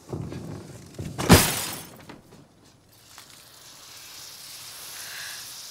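A single sharp crash of glass bottles about a second and a half in, dying away within half a second, then a faint hiss.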